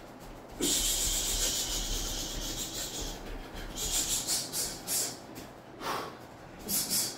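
Sharp hissing exhales through the teeth of a man shadowboxing, one to each punch. One long hiss starts about half a second in and lasts over two seconds, then come quick runs of short hisses around the middle and again near the end.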